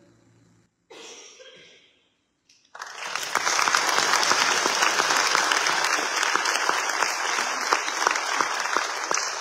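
A choir's final held chord dies away in the church's reverberation. After a short hush, the audience breaks into applause about three seconds in, and the dense clapping carries on steadily.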